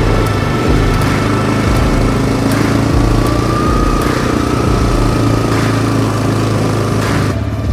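Small engine running at a steady speed, with a faint whine over the engine hum, from the machine carrying the grass-seed hopper.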